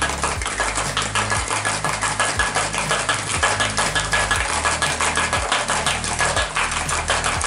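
Ice rattling inside a stainless steel cocktail shaker that is being shaken vigorously: a rapid, steady clatter.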